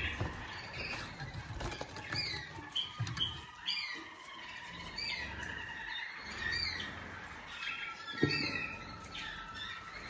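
Domestic canaries chirping and calling, short quick calls repeating throughout, with a few soft knocks from the cage being handled, the loudest about eight seconds in.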